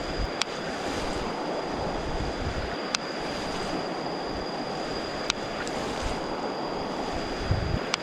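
Steady rush of flowing water, with a thin, steady high-pitched tone above it and four sharp clicks about two seconds apart.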